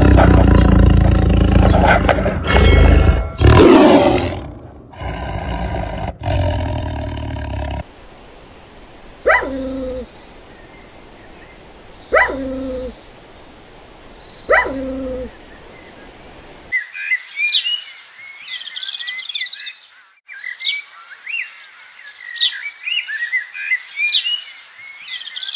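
A big cat roaring loudly for several seconds, in drawn-out, deep, rough calls. Then come three sharp animal calls a few seconds apart, each dropping steeply in pitch, followed by birds chirping rapidly in the second half.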